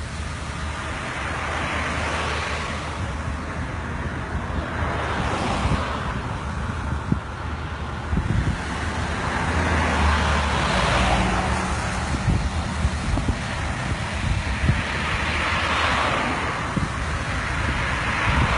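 Road traffic: about four vehicles pass one after another, each swelling and fading, over a low rumble of wind on the microphone.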